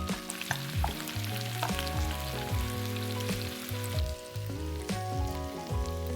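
Food sizzling in hot oil in a frying pan, a steady crackling hiss, under background music with a bass line and a regular beat.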